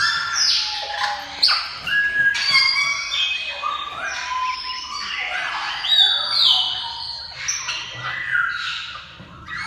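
Many parrots calling together: a dense run of overlapping squawks and short whistled calls, some gliding up or down in pitch.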